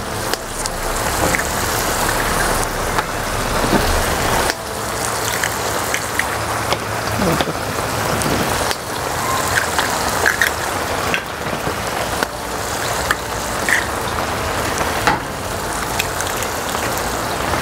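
Eggs frying in oil with chopped tomato, onion and chile in a pan, a steady sizzle, with a few sharp clicks as more eggs are cracked into it.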